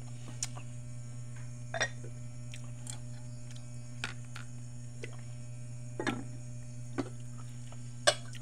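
Aluminium cooking pots and their lids being handled, giving about half a dozen short metallic clinks and knocks spread through, the loudest near the end, over a steady low electrical hum.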